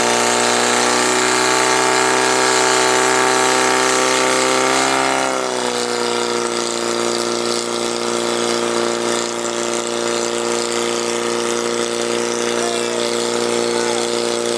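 Portable fire pump engine running hard at high revs, driving water through the hoses to two spraying jets. About five seconds in, its pitch drops a little and then holds steady.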